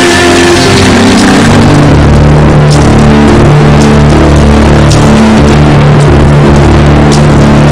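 Loud music: sustained low bass notes that change pitch in steps, with sharp percussion hits every second or so.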